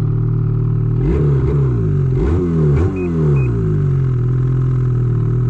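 Ski-Doo snowmobile engine idling, given four or five quick throttle blips in a row from about a second in, then settling back to a steady idle.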